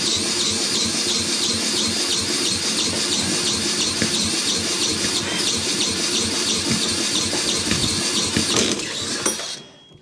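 Cordless drill spinning a Mountfield lawnmower's four-stroke overhead-valve engine over by its flywheel nut, a steady run with a fast low rhythm from the engine turning over. The engine is trying to fire but does not catch. The drill stops about nine and a half seconds in.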